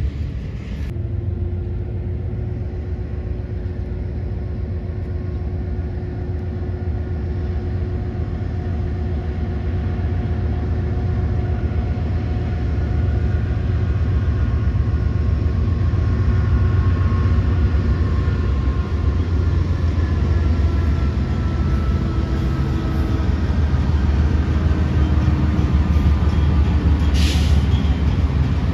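BNSF GE diesel-electric freight locomotives running past, a deep engine drone that grows steadily louder as the lead units draw close, with faint whines gliding slowly in pitch. A short sharp noise near the end.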